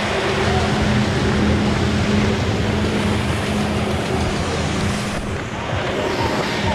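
Flyboard in flight: the steady drone of the engine pumping water up the hose to the board, under the rush of its water jets.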